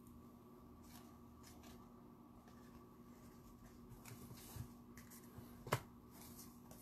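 Faint light ticks and rustles of trading cards being handled and set down, with one sharper click about three-quarters of the way through.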